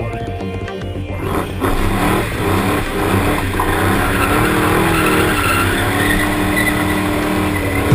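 Ford Mustang spinning donuts: the engine held at high revs, its pitch wavering up and down, with tyres squealing as they spin and smoke. It gets louder about a second in.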